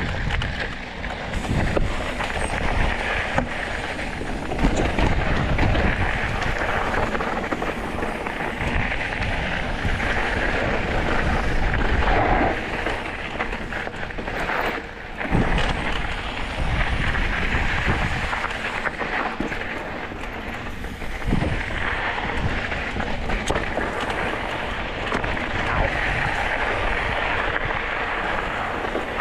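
Mountain bike riding down a dirt and rock singletrack: tyres crunching over the trail surface, with wind buffeting the body-mounted camera's microphone. A sharper knock comes about halfway through.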